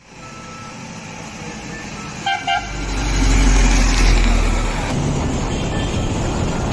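A bus approaching and passing close by, its engine rumbling loudly as it goes past, after two short horn toots about two seconds in.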